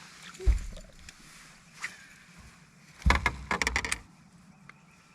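Knocking and clatter of handling aboard a fishing boat: one dull thump about half a second in, then a burst of rapid sharp knocks and rattling lasting about a second.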